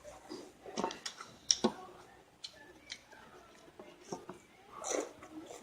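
Cheese wafer being bitten and chewed, with scattered short crisp clicks and crackles.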